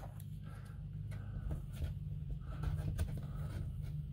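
Soft rubbing and light scraping against window glass as an adhesive strip is pressed and smoothed on to push the air out, over a steady low hum.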